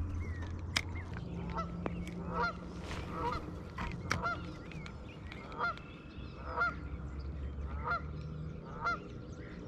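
A goose honking over and over, one short call about every second, with a few sharp clicks in between.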